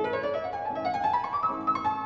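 Solo piano passage on an 1847 Pleyel grand piano: a quick stepwise rising run that levels off into repeated notes near the top.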